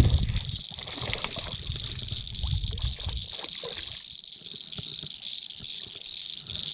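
A hooked largemouth bass splashing at the water's surface as it is reeled in, over a steady high chorus of insects. A low rumble on the microphone fades out about three seconds in.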